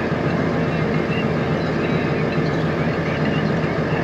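Tractor diesel engine running at a steady idle, an even low hum with no change in speed.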